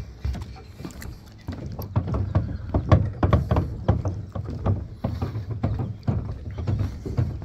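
Footsteps on the wooden decking of a floating dock, at a steady walking pace of about two steps a second.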